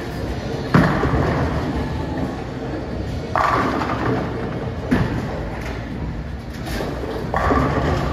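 Bowling alley: a steady low rumble of balls rolling down the lanes, broken four times by sudden crashes of pins being struck, each with an echoing tail.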